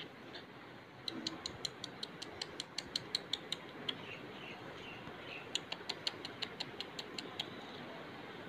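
Two quick runs of sharp clicks, about six a second, from budgerigars' beaks pecking at a hard tiled floor, with faint soft chirps between the runs.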